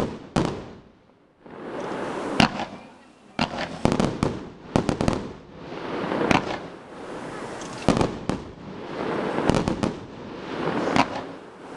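Aerial fireworks shells bursting overhead: sharp bangs every second or two, some in quick rapid clusters, with crackling between them and a brief lull about a second in.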